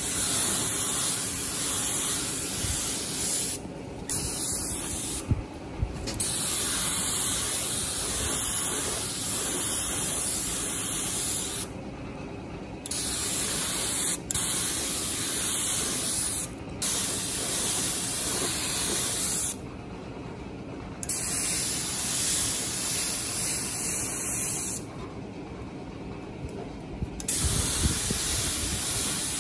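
A pressurised spray hissing in long bursts, cutting off and starting again every few seconds, over a steady low hum.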